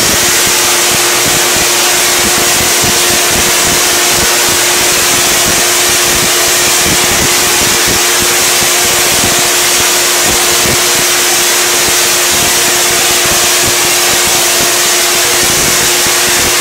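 Half-wave Tesla coil firing, its 50-inch arc jumping between the two toploads: a loud, steady spark buzz with one constant tone in it.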